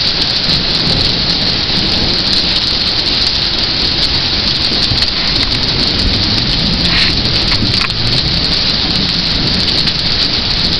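Heavy rain pouring down: a steady, dense hiss with a low rumble beneath it.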